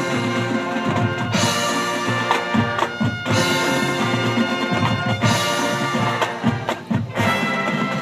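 High school marching band playing its field show: brass chords over drums, in loud phrases that swell and ease.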